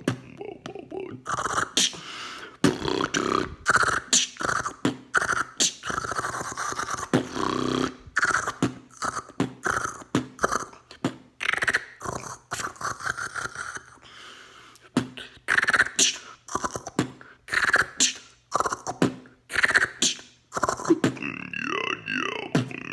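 Solo human beatboxing: rapid mouth-made drum clicks and snare-like bursts mixed with short voiced sounds. Near the end it shifts into wavering tones that glide up and down in pitch.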